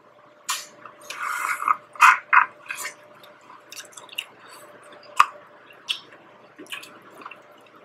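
Close-up wet chewing and mouth sounds of someone eating sauce-coated corn on the cob: a string of short, irregular smacks and squishes with a few sharp clicks, over a faint steady hum.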